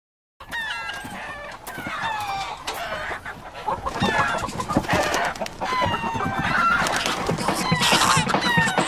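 A flock of chickens clucking, many short calls falling in pitch and overlapping, busier and a little louder toward the end.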